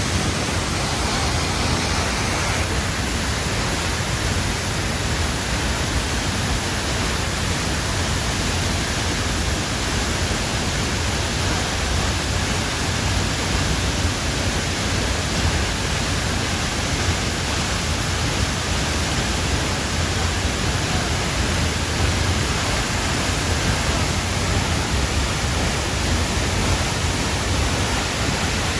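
Steady, loud rushing noise with no rhythm or pitch, spread evenly from deep rumble to hiss.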